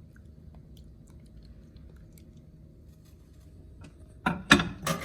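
Low steady background hum, then three quick sharp knocks, a bit less than a second in all, near the end: hard kitchen things being handled.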